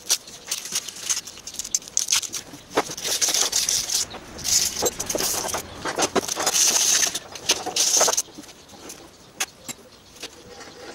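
Thin metal plates handled and pressed onto the jaws of a small bench vise by hand: many light clicks and scraping rubs, busiest from about four to eight seconds in, then a few scattered clicks.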